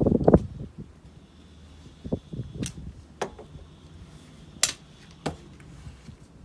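Handling noises: a cluster of heavy knocks at the start, then about five sharp, separate clicks spread over the following seconds.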